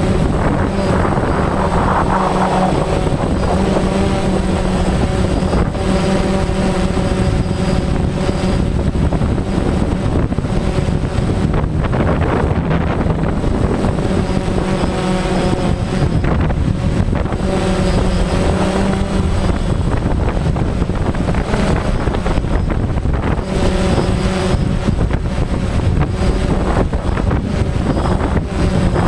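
Helicopter engine and rotor running steadily, heard from on board: a loud, constant drone with a steady hum.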